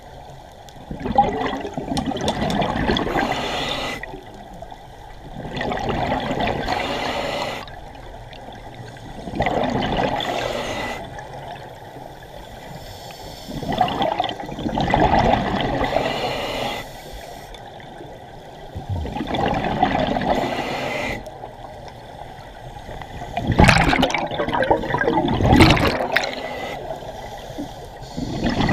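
Scuba regulator exhaust: the diver's exhaled breath bubbling out in gurgling surges of two to three seconds, about every four to five seconds, with quieter inhalations between. A few sharper, louder bubble bursts come near the end.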